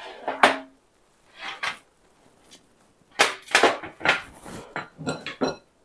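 Metal baking sheet and cookie scoop clattering against the counters as they are handled and set down: a series of sharp knocks and clanks with brief metallic ringing, busiest in the second half.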